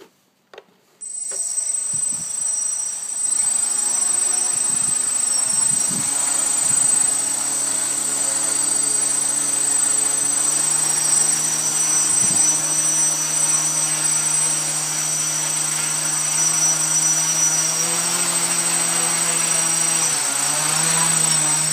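DJI 920 brushless motors of a quadcopter starting and spinning 10-inch props at idle while it sits on the ground, a steady whirring with a high whine; the pitch shifts slightly a few times. A couple of faint clicks come just before the motors start.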